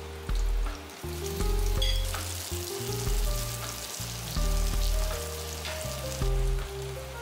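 Prawns and garlic sizzling in hot oil in a non-stick wok, the sizzle growing louder about a second in as the prawns go in, with a few light clicks of the spatula. Background music with a repeating bass line plays under it and is the loudest sound.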